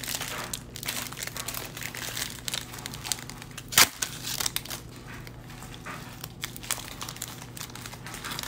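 Foil trading-card pack wrapper crinkling as it is handled, a dense run of small crackles with one sharp, louder crackle a little before the middle.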